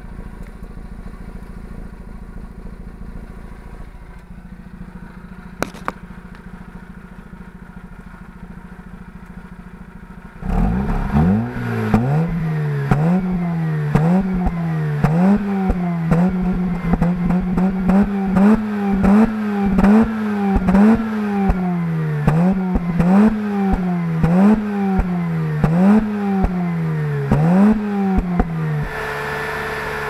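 Mazda RX-8's stock twin-rotor Renesis rotary engine heard at the tailpipe, idling steadily for about ten seconds, then blipped over and over, roughly once a second, each rev rising and falling. Pops and crackles come from the exhaust on the revs, and near the end the engine holds a steady speed.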